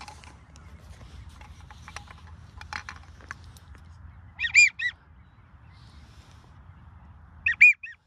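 Duck whistles: two short, loud bursts of high, quavering whistled notes, one about halfway through and one near the end, with fainter calls and clicks a couple of seconds earlier.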